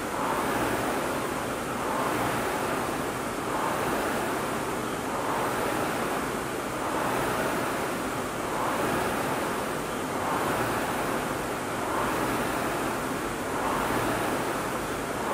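Rowing machine flywheel whooshing, swelling with each pull stroke and easing on the recovery, about one stroke every two seconds at an even pace.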